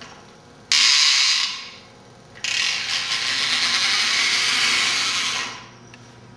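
Pull-back toy car's spring motor whirring: a short whir as the car is pulled back to wind the spring, then about a second later a longer whir as it is released and runs off, dying away near the end.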